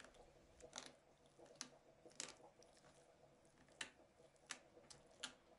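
Faint, scattered soft ticks and squishes of a metal fork breaking canned sardines into pieces in a mesh strainer, about six small sounds spread over a few seconds.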